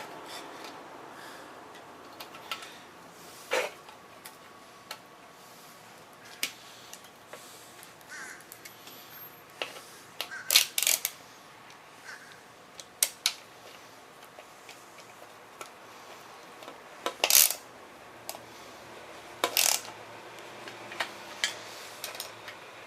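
Scattered metallic clicks and clinks of a 10 mm hand tool on the motorcycle's rear fender bolts as they are tightened down, with a few sharper knocks about halfway through and again near the end.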